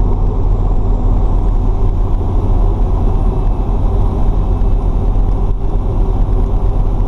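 Fire truck's diesel engine and road noise heard from inside the cab while driving, a steady, loud low rumble.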